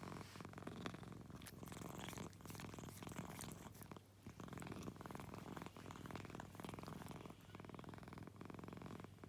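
An American Shorthair cat purring softly and continuously, a fast even buzz that breaks briefly about once a second as the cat switches between breathing in and out.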